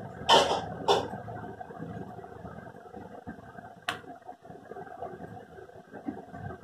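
Handling noise as a cable's metal jack plug is moved around and pressed against a multimeter: two short rustling scrapes near the start and a single sharp click about four seconds in, over a faint steady hum.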